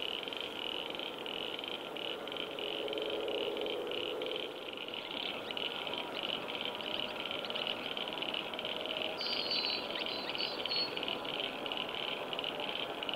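Quiet outdoor ambience, with a steady high-pitched chirring and a few short high chirps in the second half. No engine sound is heard.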